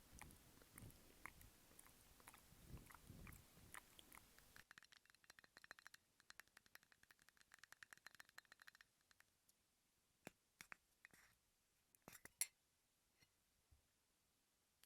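Quiet ASMR mouth sounds: soft wet clicks and smacks for the first few seconds. An abrupt change follows to a dense run of fast, faint crackling clicks lasting about four seconds, then a few scattered clicks, one sharper than the rest near the end.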